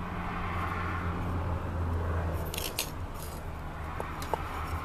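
Light scraping and a few small metallic clinks from hands working gravelly soil and tie wire at the base of a potted olive bonsai, over a steady low hum.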